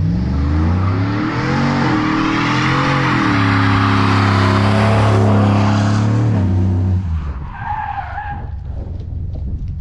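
GMC Sierra pickup doing a burnout: the engine revs up and holds high while the tyres spin and squeal. About seven seconds in the engine drops off and a short, higher squeal follows as the brakes go on after the truck has broken loose.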